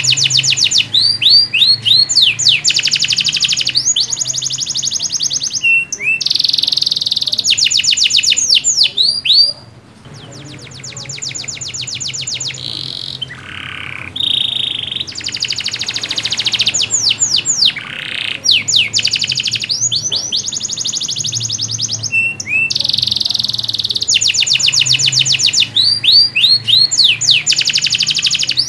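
Canary in full, prolific song: long runs of fast trills and rapidly repeated notes with quick pitch sweeps. The song turns softer for a few seconds about ten seconds in, then returns at full strength.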